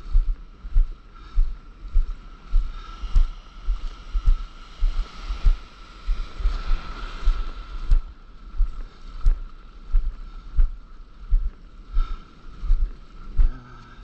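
Stand-up paddleboard being paddled out through whitewater. Low, even thumps come about three every two seconds over the rush of foaming surf, and the surf swells in the middle.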